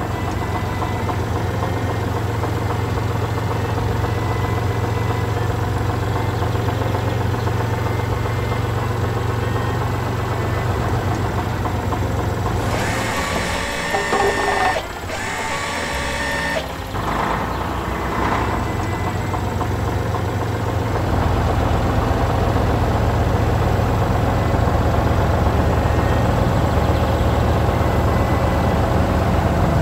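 Heavy vehicle engine sound effect for a wheel loader and truck, running steadily. A few seconds of hiss cut in near the middle, and the engine gets louder about two-thirds of the way in.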